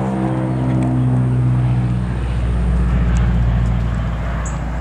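Crop duster airplane passing low overhead: its engine and propeller drone drops steadily in pitch as it goes by, then turns to a rougher rumble that starts to fade near the end.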